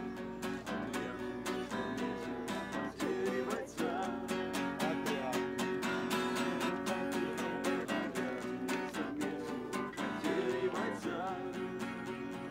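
Acoustic guitar strummed in a steady rhythm, with a man's voice singing along in places.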